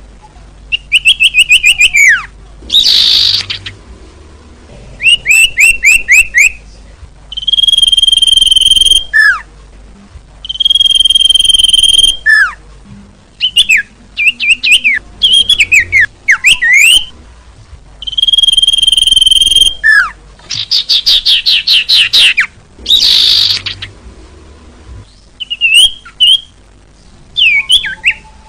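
Recorded bird calls played as a lure for small songbirds. The calls come in loud bouts every couple of seconds: held, even-pitched whistles about a second long, rapid series of chirps, and short notes that slide downward, with brief quiet gaps between bouts.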